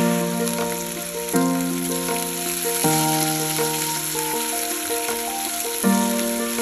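Bacon strips sizzling in a nonstick frying pan, a steady hiss of frying fat. Background music plays over it, its chords changing about every second and a half.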